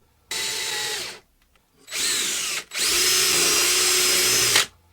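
Electric drill boring a dowel hole into a wooden board, run in three bursts, the last and longest about two seconds.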